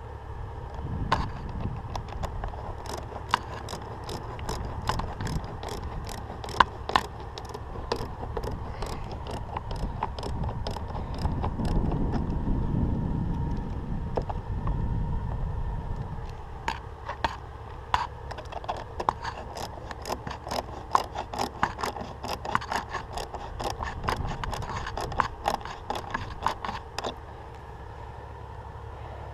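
A hand ratchet being worked in two long runs of sharp, even clicks, about three a second, with a break of several seconds of low rumbling handling noise in the middle.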